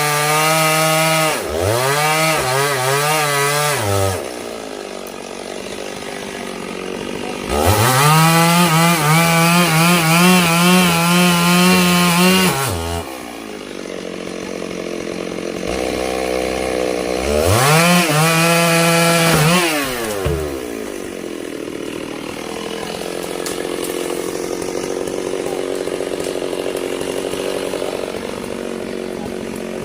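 Two-stroke chainsaw cutting sengon (albizia) wood. It runs up to full throttle three times for a few seconds each, the longest in the middle, and drops back to a lower idle between runs and afterwards.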